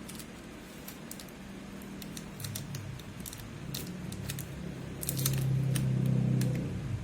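Light sharp clicks and small taps, scattered irregularly, over a low hum that swells about five seconds in and drops back just before the end.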